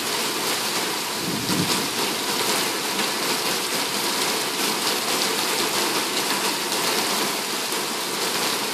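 Heavy thunderstorm rain pouring down, a steady dense hiss of rain on roofs, road and window glass, heard through an open window.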